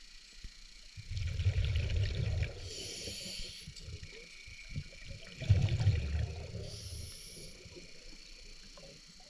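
Scuba diver breathing through a regulator underwater: two exhalations heard as rumbling bubble bursts, each followed by the short hiss of an inhalation, about four seconds apart.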